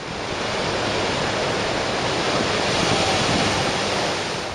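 Ocean surf breaking against rocks, a steady wash of noise.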